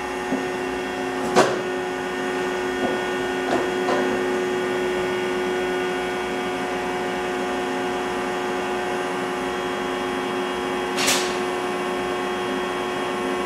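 Steady hum with several held tones from the test rig's two heaters warming the engine's heater tube and its cooling unit, all running while the piston engine itself is not yet started. A few clicks and knocks come in the first four seconds, and a short rushing burst about eleven seconds in.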